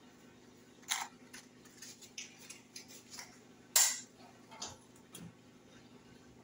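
Scattered light clicks and knocks at a gas stove as a burner is lit under a small saucepan, with one louder clack a little under four seconds in.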